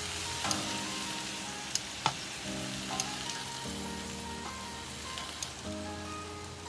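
Vegetable kebabs sizzling on a hot flat-top griddle, with a few sharp clicks of metal tongs against the skewers as they are lifted off. Soft background music chords play underneath.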